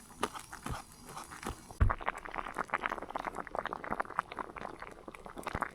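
Cooking pot bubbling at the boil, with scattered light clicks at first and a single sharp knock about two seconds in, followed by dense crackly bubbling.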